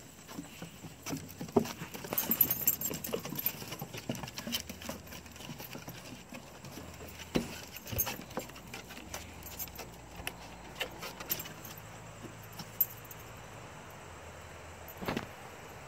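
Small dogs scampering and playing on a wooden deck: light clicks and scuffs of paws on the boards, with metallic jingling, busiest and loudest a couple of seconds in.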